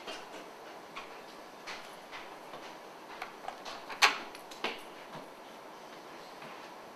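Scattered light clicks and knocks, with a sharper knock about four seconds in and another just after.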